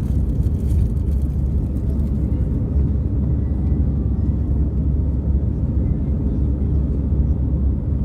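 Steady deep rumble of an Airbus A319's jet engines and rushing air, heard inside the passenger cabin.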